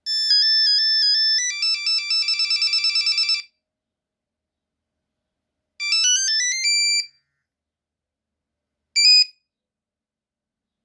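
Nokia 3310 playing monophonic ringtones in bright, buzzy beeps. First comes a melody of about three and a half seconds that ends in fast repeated notes, then about six seconds in a short run of rising notes, then a brief blip of a couple of notes near the end, with silence between each.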